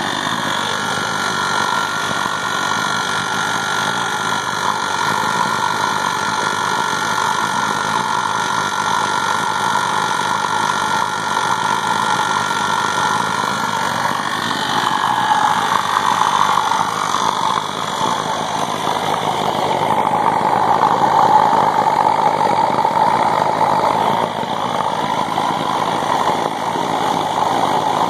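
Air compressor running steadily while it supplies air to a homemade waste-oil burner that is firing. The mix changes a little about halfway through.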